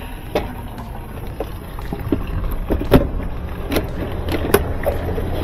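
Scattered plastic clunks and knocks as the washing machine's top panel is lifted and handled, the sharpest about three seconds in, over a steady low rumble.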